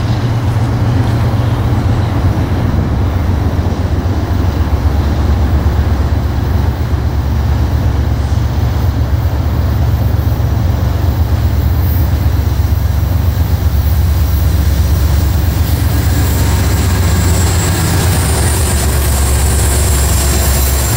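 Freight train with five diesel locomotives approaching and passing close by, over a steady low rumble. The wheel and rail noise grows over the last few seconds as the locomotives go by.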